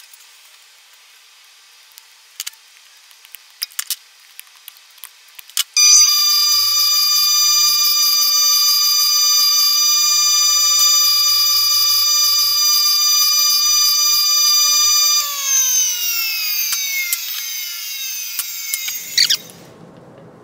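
A few light clicks, then a bench grinder runs with a steady high whine while a fuel injector's welded pintle cap is held to the stone wheel. About fifteen seconds in, the pitch falls as the grinder is switched off and spins down.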